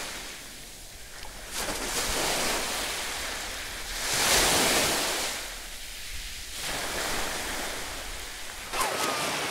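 Sea waves washing on a beach, swelling and fading twice. Feet splash through shallow water near the end.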